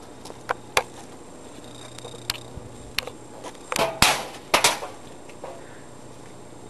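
Sharp clicks and snaps of a Galaxy box fan's carrying handle being worked loose from the fan housing: a few single clicks, then a cluster of louder cracks and knocks about four seconds in.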